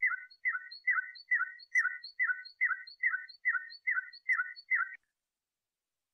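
Canary song tutor recording in the Moroccan flauta style: one short two-note falling phrase repeated about a dozen times, evenly, roughly two and a half per second, then stopping abruptly about five seconds in. It is a training tour played to teach young canaries the song.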